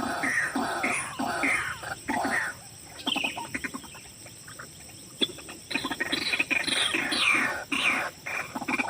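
White-breasted waterhen calls: a fast run of repeated falling notes that breaks off about two and a half seconds in and starts up again about three seconds later.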